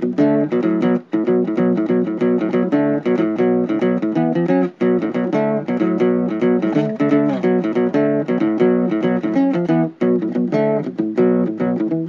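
Background music: a plucked guitar playing a quick, busy run of notes.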